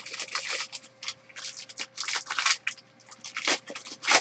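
Foil wrapper of a trading-card pack crinkling and crackling in the hands as it is opened, in short irregular bursts with a few louder crackles.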